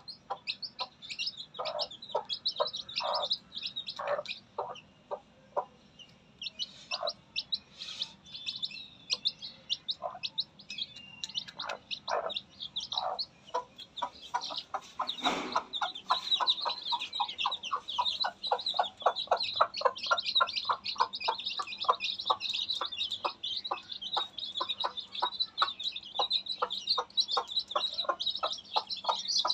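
A mother hen clucking to her newly hatched chicks over their constant high peeping. Her clucks come irregularly at first, then from about halfway in as a steady run of about four clucks a second. There is a brief thump just before the steady clucking starts.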